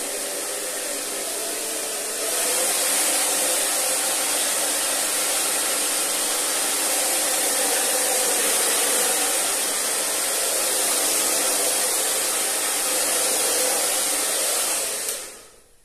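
Hand-held hair dryer running, blowing over foam hair curlers: a steady rushing noise that gets louder about two seconds in and winds down near the end.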